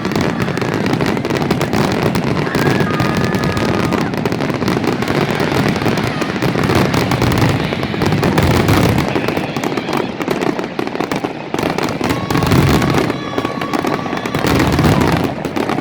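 Fireworks display going off continuously: a dense, unbroken run of bangs and crackles, with a few brief whistling tones.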